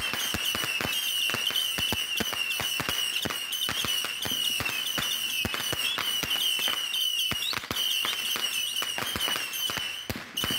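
A 300-shot missile firework battery firing in rapid succession: a continuous stream of sharp pops, several a second, over a steady, wavering high whistle. The stream thins briefly near the end.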